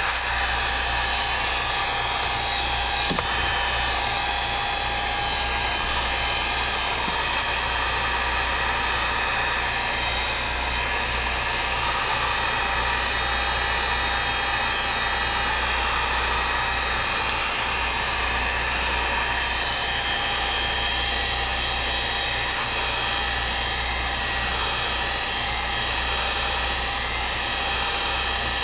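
Wagner electric heat gun running steadily, its fan blowing hot air with a steady whine, while it heats the screen adhesive. A few faint ticks.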